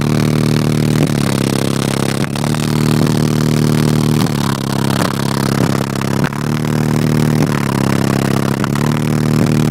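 Car audio subwoofers playing an extremely loud bass demo: deep, heavy bass notes held for about two seconds each, shifting pitch in a repeating pattern.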